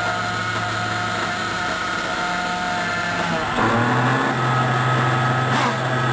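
Small nitro engines of 1/8-scale R/C buggies running on the track: a steady buzzing note that steps up in pitch about halfway through, with pitch rising and falling near the end as a buggy revs.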